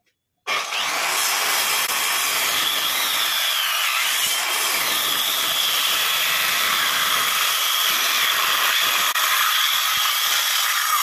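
Handheld electric circular saw starting about half a second in and cutting steadily through a thick timber beam, its high motor whine wavering a little under load.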